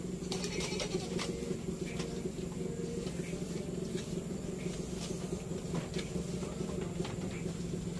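Goat licking and nibbling at a hanging lick block, giving scattered soft taps and clicks over a steady low hum.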